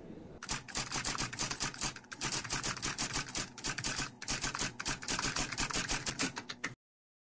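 Typewriter keys clacking in a rapid, steady run of keystrokes, a sound effect for the text typing itself out. It starts about half a second in and cuts off abruptly near the end.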